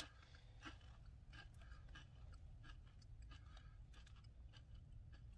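Faint, irregular crunchy clicks from Takis Blue Heat rolled tortilla chips, over a low steady rumble.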